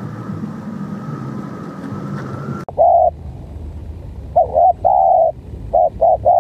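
A steady background hum with a thin steady tone, cut off abruptly about two-thirds of a second before the three-second mark. Then a spotted dove coos: one short coo, and a second and a half later a broken, halting run of short coos with one longer coo among them.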